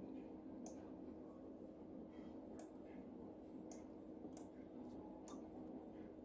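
Computer mouse clicking: about six faint, sharp clicks at irregular intervals over a steady low electrical hum.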